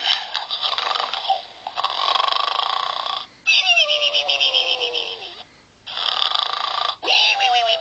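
A pig snoring: rasping breaths of one to two seconds each, about five in a row with short pauses between them. Some breaths carry a whistling tone that slides down in pitch.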